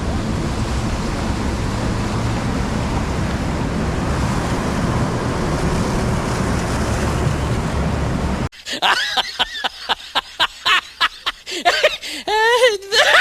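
Steady rush of wind and engine noise from a fishing boat under way. About eight seconds in it cuts off abruptly to people's voices and laughter.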